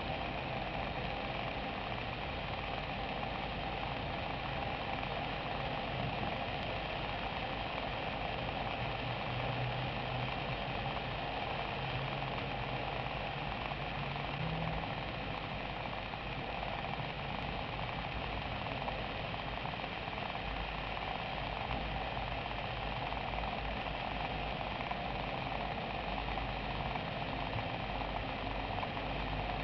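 Steady rush of moving air with a faint low hum beneath it, even and unchanging.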